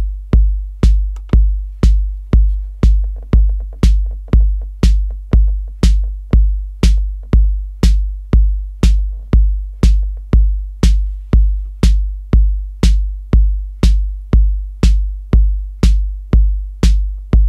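Maschine+ drum pattern looping: a four-on-the-floor kick drum, run through saturation and compression, about two beats a second, with snare hits laid over it.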